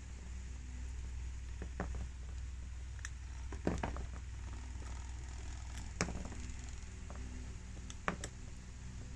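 Guinea pig gnawing a hanging willow-and-wood chew toy: a handful of sharp, irregular crunching clicks over a steady low hum.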